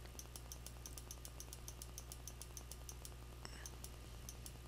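Computer mouse clicking rapidly and evenly, about five or six faint clicks a second, over a steady low electrical hum.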